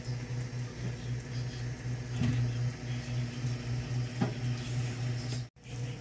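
A steady low hum, with a couple of faint clicks; it cuts out for a moment near the end.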